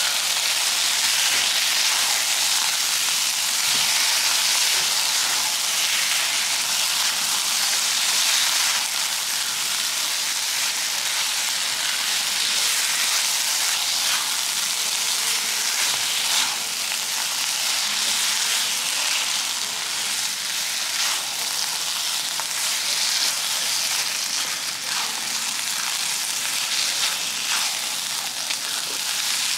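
Chili spice paste frying in oil in a wok: a steady sizzling hiss as the paste is stirred and spread with a spatula.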